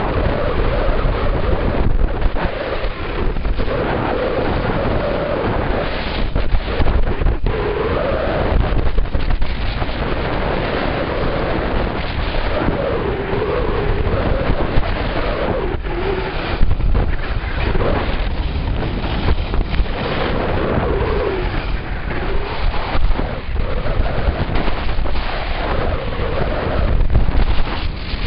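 Heavy wind rumbling and buffeting on the microphone during a downhill ski run, with skis scraping and carving on hard-packed snow, the scrape swelling and fading with each turn.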